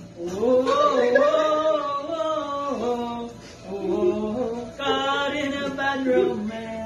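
Voices singing a chant-like tune in long held notes that glide up and down, in about three phrases.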